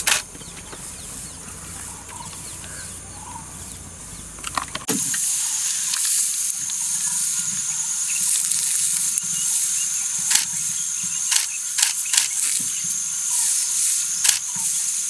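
Outdoor bush ambience: a faint low hum for the first five seconds or so, then, after a sudden change, a steady high-pitched insect drone with scattered clicks and rustles.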